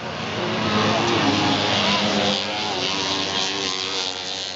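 Several single-cylinder racing snowmobile engines at high revs, their notes rising and falling as the sleds pass. The sound builds about a second in and then holds.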